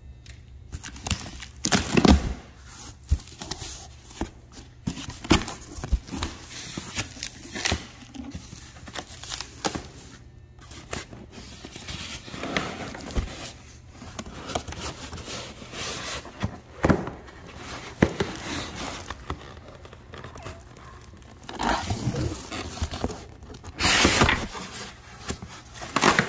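A cardboard shipping box being opened and unpacked by hand: cardboard flaps scraping and tearing, foam packing blocks rubbing and plastic wrap crinkling. The sound is an uneven string of sharp rustles and knocks, with a louder burst of handling near the end.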